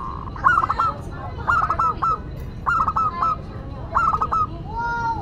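Zebra dove (perkutut) singing: four short phrases of rapid staccato coos, about one a second, followed by a smoother drawn-out note near the end.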